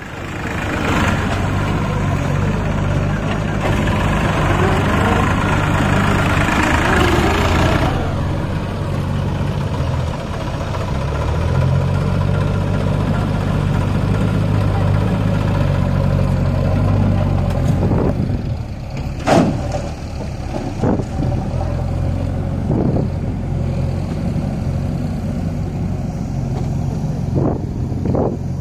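Massey Ferguson 9000 tractor's diesel engine running steadily, busier and louder over the first several seconds, with a few short sharp noises later on.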